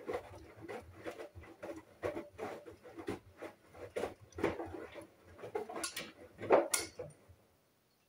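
Hoover front-loading washing machine tumbling a wet load: rhythmic sloshing and soft thuds as the clothes drop in the drum, roughly two to three a second, with a sharper knock near the end. The drum then stops and the sound dies away.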